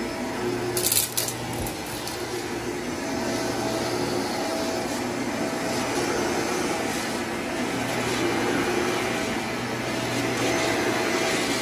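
Upright vacuum cleaner running over carpet, a steady motor drone with a hum and a faint whine that comes and goes as it is pushed back and forth. A short crackle, the loudest moment, comes about a second in.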